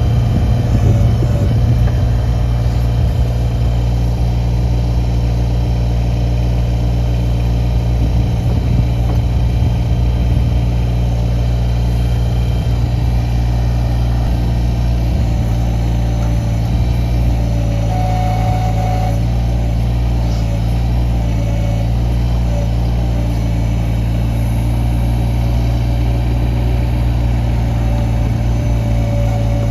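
Kubota BX24 compact tractor's three-cylinder diesel engine running at a steady speed, its pitch holding level.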